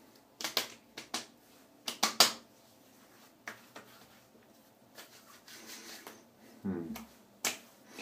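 Bare hands slapping and patting aftershave onto a freshly shaved scalp, face and neck. It comes as a quick run of sharp smacks in the first couple of seconds, then a few lighter pats later on.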